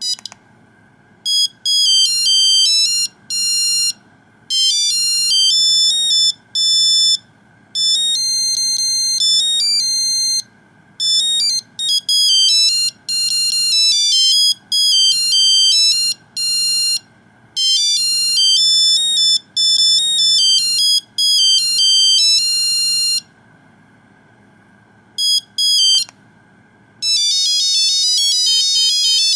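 Nokia 2100 monophonic ringtone playing a melody of single beeping notes in phrases with short gaps between them. Near the end, after a pause and a brief burst, a faster run of rapid notes begins.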